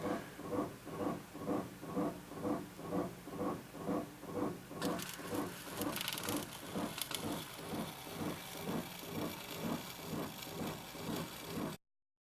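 A machine running with a regular pulse, about two to two and a half beats a second, carrying a few steady tones; a hiss joins about five seconds in, and the sound cuts off abruptly just before the end.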